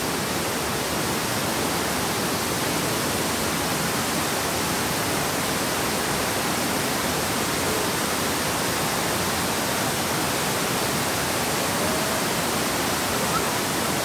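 Steady rush of a small waterfall cascading over rocks into a shallow stream.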